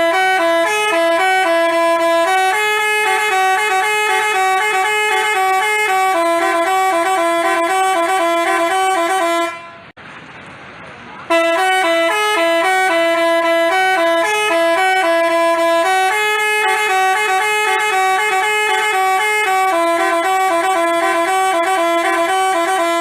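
Telolet 'basuri' musical bus horn playing a tune in a run of stepped, held notes. The tune breaks off for about a second and a half about ten seconds in, leaving only a low rushing noise, then starts again and plays on.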